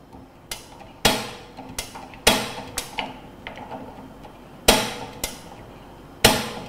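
Gas control knob on an ERG-010 egg roll machine clicking sharply about eight times at irregular intervals as it is worked to light the burner, each click ringing briefly. The knob has to be worked a few times so gas reaches the burner before it catches.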